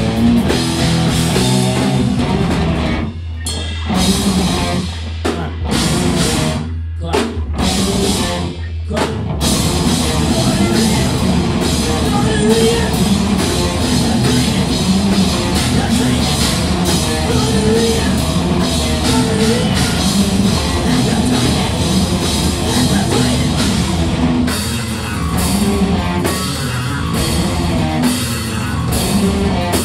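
Live rock band playing loud and instrumental: electric guitars and bass guitar over a Tama drum kit. The drums and guitars cut out for short breaks three times in the first ten seconds while the low bass rumble carries on, then the full band plays on.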